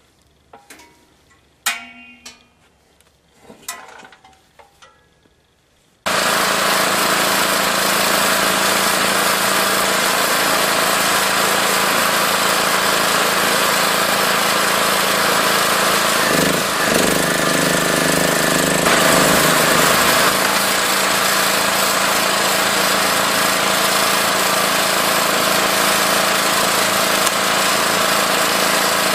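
After about six seconds of faint knocks, the electric motor and hydraulic pump of a 9-ton vertical log splitter start suddenly and run steadily with a loud mechanical hum. A little past the middle the tone changes for a couple of seconds, then settles again.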